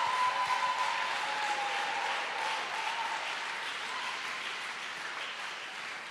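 Congregation applauding, the applause slowly dying down.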